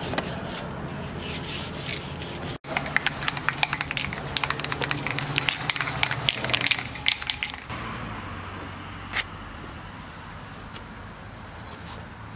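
Aerosol spray-paint can being shaken, its mixing ball rattling in a fast run of clicks for about five seconds, starting a few seconds in.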